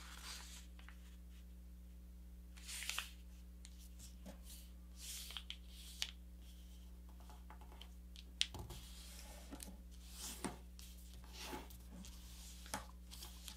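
Thin kami paper being folded and creased by hand: soft rustles and short swipes of fingers pressing the fold flat, every second or two, over a faint steady low hum.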